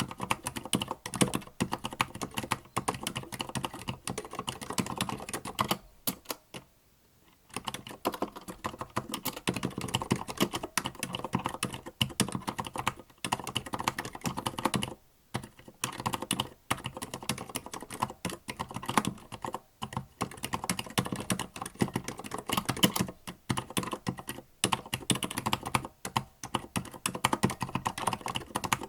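Typing on a Tada68 mechanical keyboard with Gateron Silent Black linear switches: a steady stream of quiet, damped keystrokes. The typing pauses briefly about six seconds in and again around fifteen seconds.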